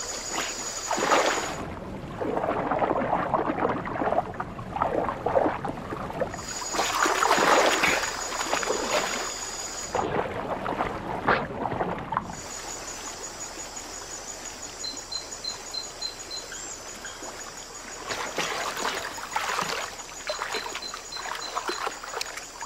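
Water splashing and sloshing in irregular surges as giant otters swim and lunge after fish in shallow water. A steady high-pitched background tone runs underneath and cuts out twice.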